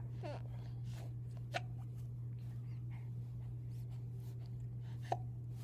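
Quiet room with a steady low hum, broken by a few faint, brief vocal noises from an infant lying on her tummy: a short squeak just after the start and another near the end.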